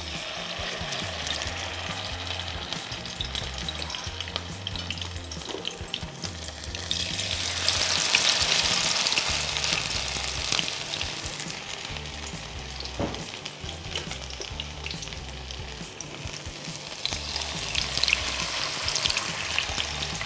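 Potato pancakes (Reibekuchen) sizzling and crackling in a pan of deep hot oil as spoonfuls of grated-potato batter go in. The sizzle swells about seven seconds in and again near the end as more pancakes are added.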